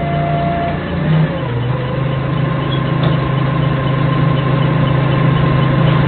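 Forklift engine running steadily under the mast. About a second and a half in it rises a little in pitch and level and holds there, with a thin steady whine on top.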